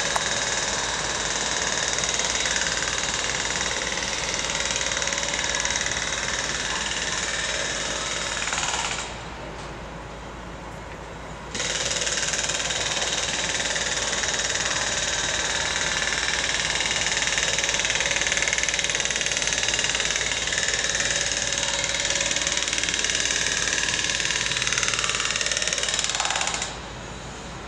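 Hammer drill hammering steadily. It pauses for a couple of seconds about nine seconds in, then starts again and stops near the end.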